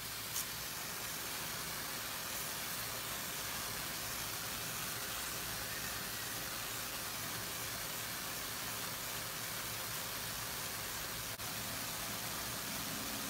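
Solid-state Tesla coil running continuously, its high-voltage corona discharge hissing steadily from the wire tips of a fidget-spinner ion motor. There is a small tick shortly after the start and a brief drop about eleven seconds in.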